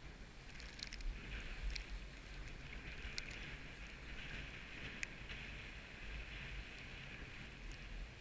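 Skis sliding over snow in a steady hiss, with wind rumbling on the microphone and a few sharp clicks scattered through.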